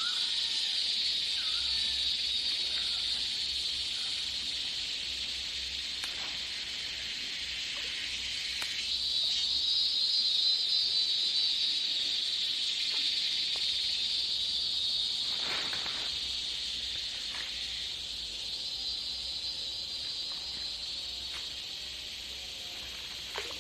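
Steady high-pitched drone of forest insects, crickets or cicadas, running without a break and swelling a little about ten seconds in, with a few faint short calls underneath.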